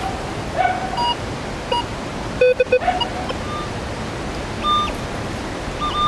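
Handheld metal detector giving short target beeps at several different pitches as its coil is swept over a dug spot, the buried target still signalling. Under it runs a steady rushing hiss of falling water.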